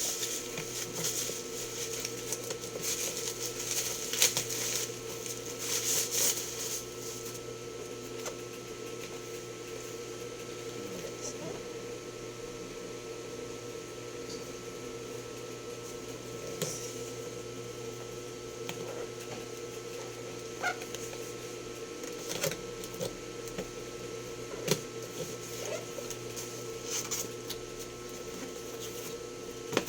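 Cardboard and plastic packaging being handled and opened: crinkling and rustling with many clicks for the first several seconds, then occasional sharp clicks and knocks. A steady electrical hum runs underneath.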